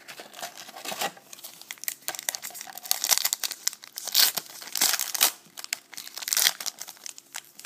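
A trading-card pack wrapper crinkling and being torn open by hand, with irregular crackling rustles and several louder bursts.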